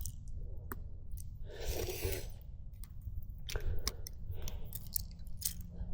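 A person breathing out heavily twice, about two seconds apart, with several small sharp clicks from handling in between, over a low steady rumble.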